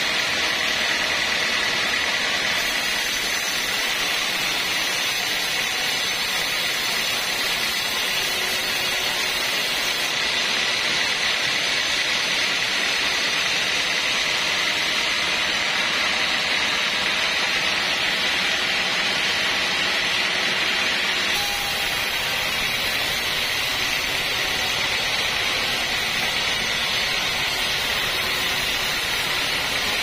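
Sawmill band saw running and ripping through a beam of old Javanese heartwood timber: a steady, loud, high-pitched hiss and whine of the blade in the cut.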